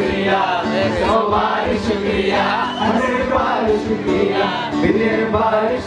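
Live performance of a Hindi song: singing over steady instrumental backing, with a crowd singing along.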